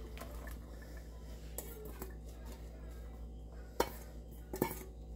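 Sliced onions tipped from a stainless steel bowl into an earthenware tagine base, with three sharp knocks as the metal bowl taps against the clay dish; the loudest knock comes about four seconds in.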